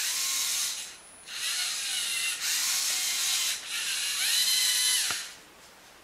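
LEGO Mindstorms NXT servo motors driving a small Lego Technic robot in three spurts. The geared motors give a rasping whine that rises and falls in pitch as they speed up and slow down. It stops about five seconds in.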